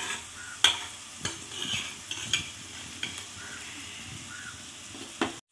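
Onions frying in coconut oil with a steady sizzle, while a steel spoon clinks sharply against the pots several times as crushed ginger, garlic and chilli are scooped out to go in. The sound cuts off abruptly near the end.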